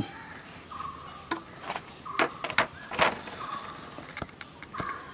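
Domestic fowl calling in short repeated notes, with a few sharp clicks and knocks among them.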